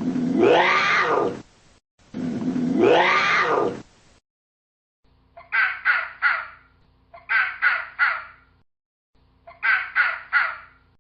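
Animal calls: two long calls that rise and then fall in pitch, followed by three bursts of three short, harsh, caw-like calls.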